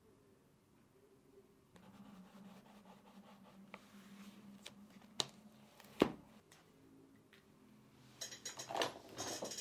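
Pen writing on paper at a desk: scratching ticks in a notebook, two sharp taps about five and six seconds in, then a run of scratching and paper rustling near the end.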